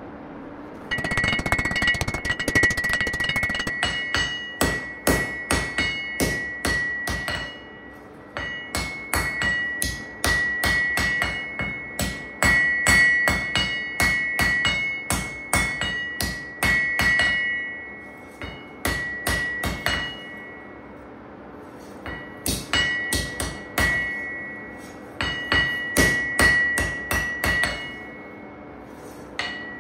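Hand hammer striking a red-hot C70 carbon-steel knife blade on an anvil, forging it to shape. The blows come in quick runs of about two to three a second with short pauses between, and each blow sets the anvil ringing with a clear, bell-like tone.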